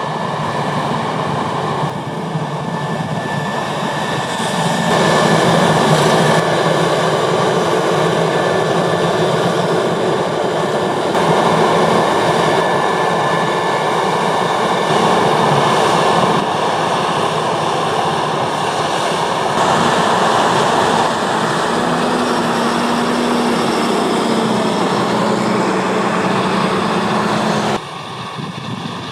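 New Holland CR 8.90 combine harvester running under load while threshing wheat: a steady drone of diesel engine and threshing machinery. Its loudness shifts abruptly several times, and near the end the engine's note drops slightly.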